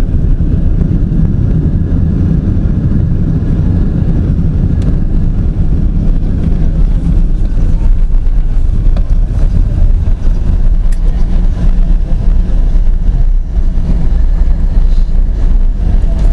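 Steady low rumble inside the cabin of a Boeing 777-200 on the ground after landing, from its engines and wheels.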